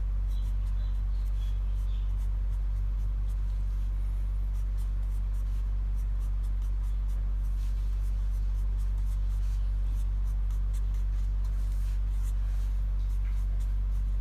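Red felt-tip marker strokes scratching on paper while writing block letters, as faint short scratches, over a steady low electrical hum that is the loudest sound.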